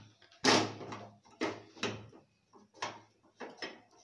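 Wooden spatula scraping and knocking against a steel kadai as stiff rice-flour dough is stirred and pressed, in about six separate strokes, the loudest about half a second in.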